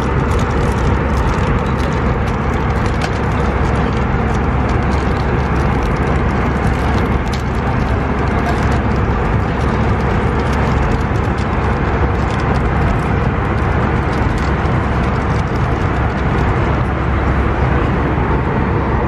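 Steady cabin noise of an Airbus A319 in cruise: an even rush of airflow and engine drone, with a few faint clicks.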